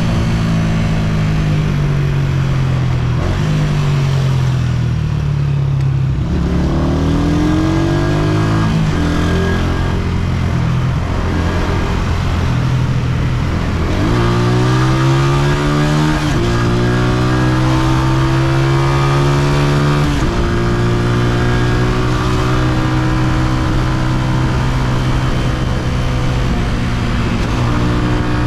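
Honda CG125's single-cylinder four-stroke engine on the move, heard from the rider's seat. The revs fall away over the first several seconds as it slows, then it accelerates, the engine note climbing and dropping back at each of several gear changes, before it settles into a steady cruise for the last third.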